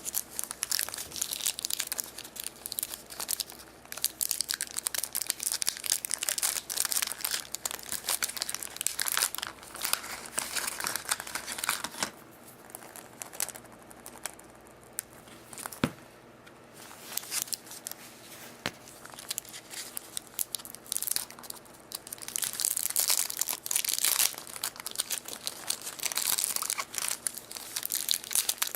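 Foil wrappers of chocolate surprise eggs being torn open and crinkled by hand, in repeated bursts of crackling. It eases off for a few seconds around the middle, with a couple of sharp clicks, then grows louder again near the end.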